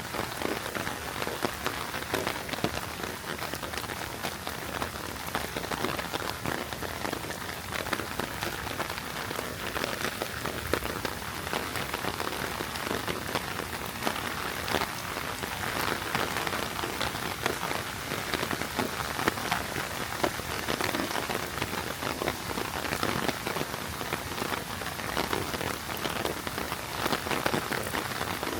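Heavy rain falling steadily, a dense patter of drops striking surfaces.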